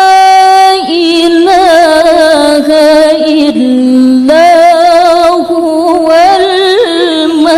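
A woman reciting the Quran in the melodic tilawah style. She holds one long steady note, then about a second in moves into long, wavering, ornamented melismas on the drawn-out syllables of the verse.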